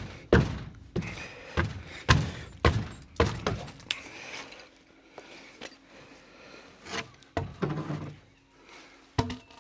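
A run of heavy thuds on timber as rotten porch framing is knocked apart, about one every half second at first, then a few more spaced out near the end.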